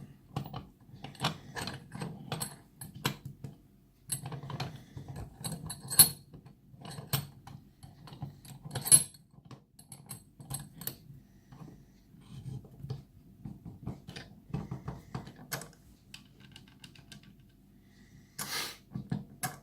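Metal clicks, clinks and knocks of a small pin-tumbler lock being handled and clamped into a bench vise, with two sharper knocks about a third and about halfway through, and a short rustle near the end.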